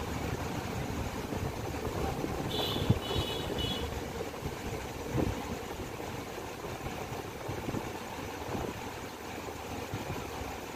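Car engine idling steadily. A few short, high beeps sound about three seconds in.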